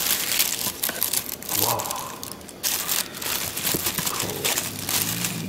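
Tissue wrapping paper crinkling and rustling as it is pulled back by hand from shoes in a box, in quick irregular crackles that thin out near the end.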